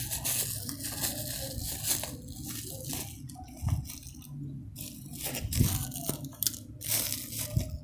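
Plastic packaging crinkling and crackling in irregular bursts as it is handled to be opened, with a few dull bumps.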